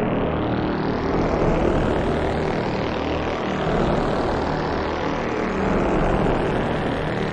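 Quadcopter drone's propellers whirring steadily in flight.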